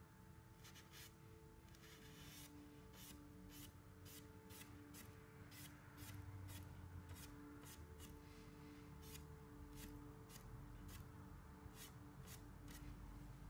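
Faint paintbrush strokes on canvas: soft scratchy brushing with irregular light ticks, about one or two a second.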